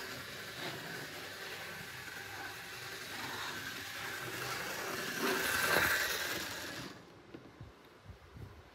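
Bachmann Thomas the Tank Engine model locomotive running round the track: the steady whir of its small motor and wheels on the rails. It grows louder about five to six seconds in, then stops abruptly about seven seconds in.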